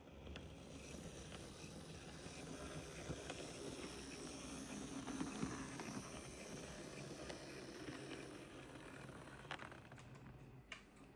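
Hornby Class 08 model shunter running on its track under DCC control: a faint motor whirr with small wheel clicks on the rails, swelling toward the middle and then fading as it passes. It runs smoothly after a full service and fresh drivetrain lubrication.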